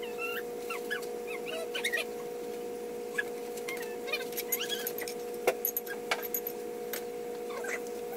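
A pet whining in many short, high-pitched, wavering cries, over a steady electrical hum, with a sharp clack about five and a half seconds in.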